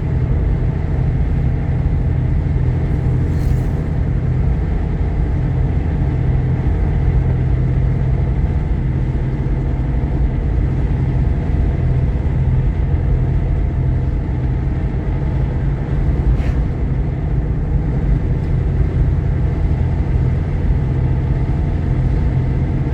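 Steady road and engine drone inside the cabin of a moving Jeep Grand Cherokee with a 3.7-litre V6, a constant low hum with no change in pace.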